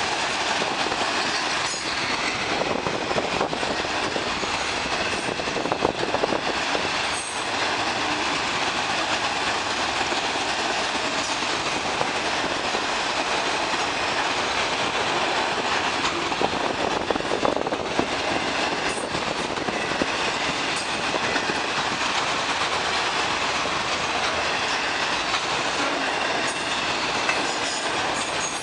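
Autorack freight cars rolling past: a steady rumble of steel wheels on rail, with scattered clacks over the rail joints and a faint high wheel squeal.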